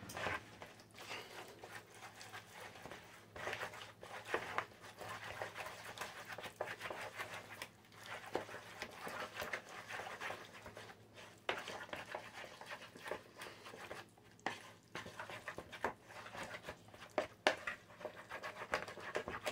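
Wooden spoon stirring a thick ricotta, parmesan and egg mixture in a mixing bowl: irregular soft scrapes and taps with short pauses.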